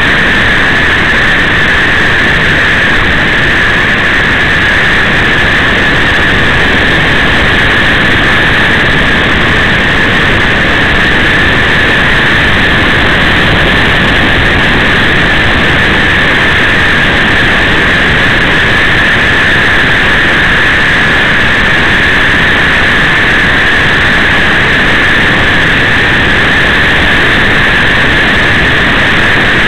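Loud, steady hiss that never changes in level or pitch, strongest in one narrow high band; no engine note, gear change or separate event stands out.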